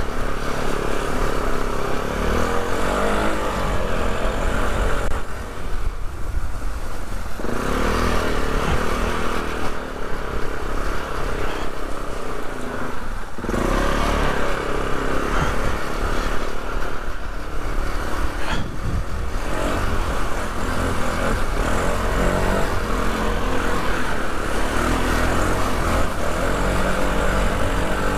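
Polaris ATV engine running under changing throttle, easing off briefly twice, about six and thirteen seconds in, then pulling again.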